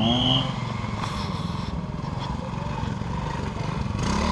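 Classic trials motorcycle engine revving up at the start, then running low and steady, with the revs rising again near the end. A brief high tone sounds right at the start.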